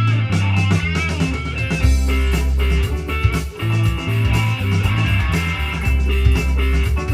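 Bang & Olufsen Beolab 3000 active speakers playing guitar-led rock music with a deep bass line and a steady drum beat, in an instrumental passage with no singing.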